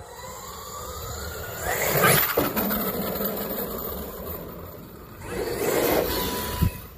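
Arrma Outcast 8S radio-controlled truck's brushless electric motor and drivetrain whining as it drives on asphalt. The whine rises in pitch over the first two seconds. It swells louder as the truck accelerates about two seconds in and again near six seconds.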